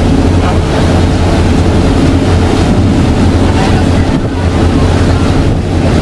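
A motorboat's engine running steadily at cruising speed, a constant low hum, with wind buffeting the microphone and water rushing past the hull.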